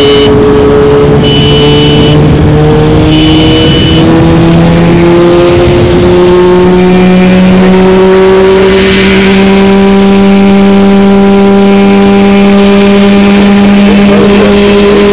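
Mosquito XE microlight helicopter's engine and rotors running, the pitch climbing steadily as they speed up and then holding steady. A high beep sounds on and off, about every two seconds, and stops about four seconds in.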